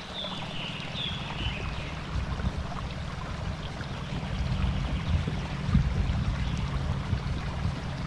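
Jeep Cherokee XJ's engine running low and slow as the Jeep crawls over river boulders, growing louder, with a single knock from the rocks or suspension a little before six seconds in. Birds chirp briefly at the start, over a faint trickle of water.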